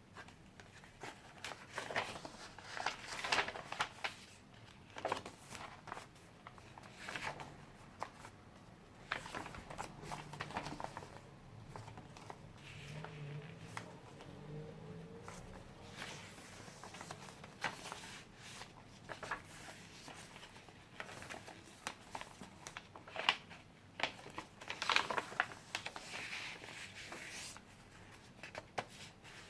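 Pages of handmade paper junk journals being flipped and handled: a run of quick paper rustles and flicks, with denser bursts of page-turning near the start and again near the end.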